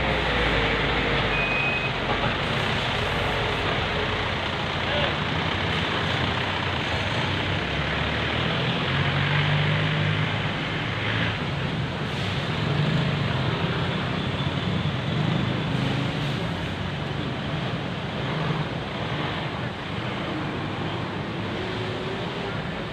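Steady road traffic noise on a busy street, with truck and car engines swelling and fading as they pass.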